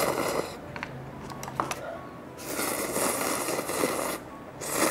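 Ramen noodles slurped in long pulls: one slurp at the start, a longer one from about two and a half to four seconds in, and another starting near the end, with a few faint clicks in between.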